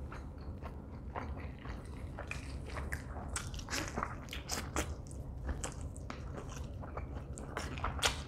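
A person biting into and chewing a whole rotisserie chicken close to a clip-on microphone: many short, irregular mouth clicks and smacks, busiest around the middle and again near the end.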